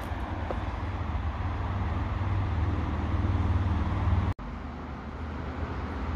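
Steady low rumble of outdoor background noise, broken by a brief dropout about four seconds in.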